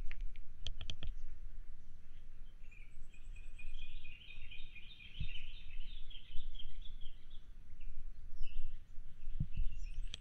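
Birds chirping in a quick, dense chatter for a few seconds in the middle, over a low rumble, with a few dull footfalls on wooden boardwalk planks.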